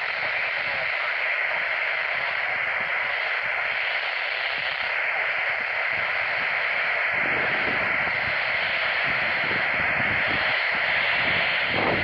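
Steady static hiss from a Midland handheld weather radio's speaker, the sound of a weak or missing broadcast signal. Low rumbling joins in from about seven seconds in.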